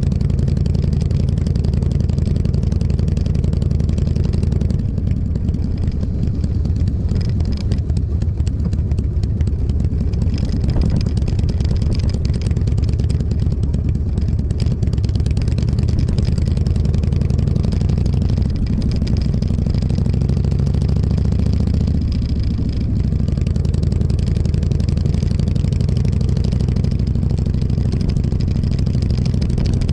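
Motorcycle engine running steadily while riding. Its pitch shifts and the level dips briefly about two-thirds of the way through, as the rider changes speed.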